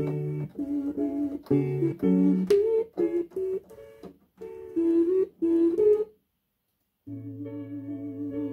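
Chopped vinyl sample slices triggered from a MIDI keyboard: short musical chord snippets that start and cut off abruptly as the keys are played. A full silent break of about a second comes after six seconds, then a held chord with a low bass note.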